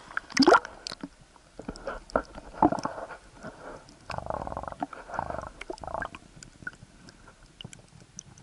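Muffled underwater sound from a submerged camera: water rushing and sloshing against the housing, with scattered clicks and knocks. There is a loud swish just after the start and stretches of louder rushing around two to three and four to six seconds in.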